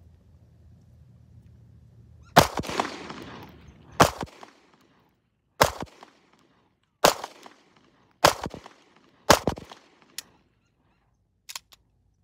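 A Walther PPS M2 9mm pistol emptying its six-round magazine: six single shots, roughly a second to a second and a half apart, the first with the longest echo. A few faint clicks from handling the gun come near the end.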